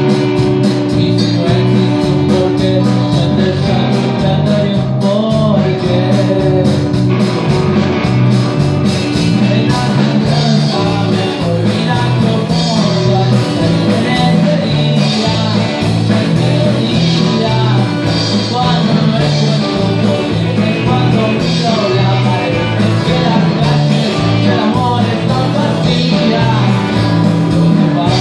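Live rock band playing, amplified acoustic and electric guitars over a steady beat, with a man singing into the microphone in places.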